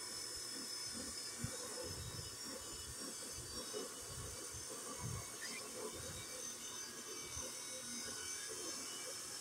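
A steady buzz with a faint high hiss, and low, irregular rumbles underneath.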